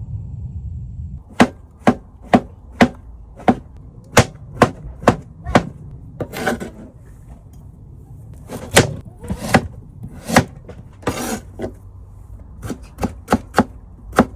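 Knife chopping on a cutting board: sharp, even knocks about two a second, with a few short scraping sounds in the middle and quicker knocks near the end. A low rumble stops about a second in, just before the chopping starts.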